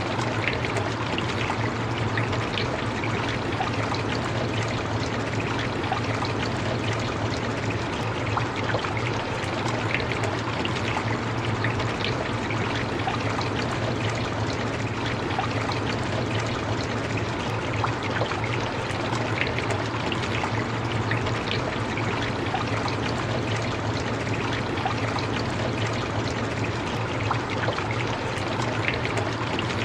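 Steady rain falling: an even hiss with scattered drop ticks and a low steady rumble underneath.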